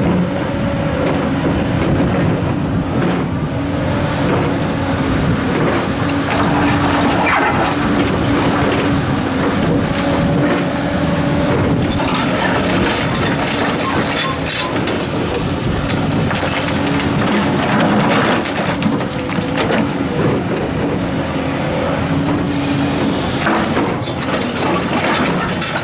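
Komatsu hydraulic excavator's diesel engine running steadily while working, with rocks grinding and knocking now and then as they are moved into place.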